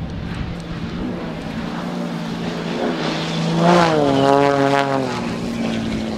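Propeller aircraft flying a low pass: a steady engine drone that swells to its loudest about four seconds in, its note sliding down in pitch as the plane goes by.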